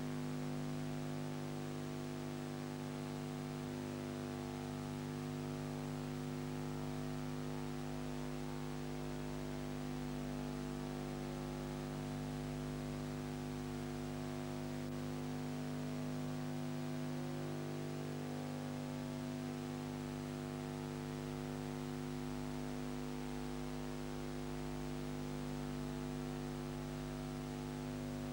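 A steady electrical hum made of several even, unchanging tones over a faint hiss, with no other sound.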